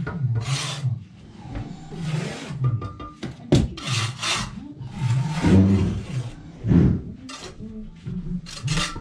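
Steel bricklaying trowels scraping mortar on boards and concrete blocks: a series of short scrapes, with a sharp knock about three and a half seconds in.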